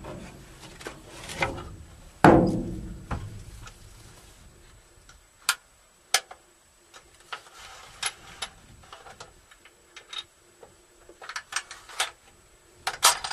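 A rifle shot about two seconds in, its report echoing away over a second or so, followed by scattered light clicks and knocks.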